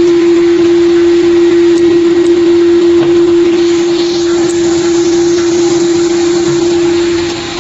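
Tablet press for dishwasher tablets running, a loud steady motor hum over mechanical noise, dipping briefly near the end.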